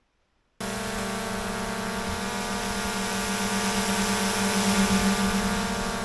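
Quadcopter drone's motors and propellers running with a steady whine and hiss, starting abruptly about half a second in.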